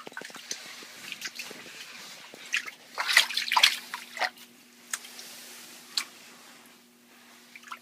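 Water dripping and splashing in a flooded room, irregular drops and knocks with a louder cluster of splashy clatter about three seconds in. A low steady hum starts at about the same moment.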